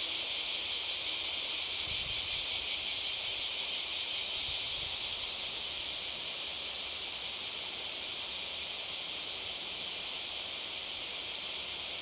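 A dense chorus of insects, most likely cicadas: a steady high-pitched buzzing hiss with a fast pulse, easing slightly in the second half.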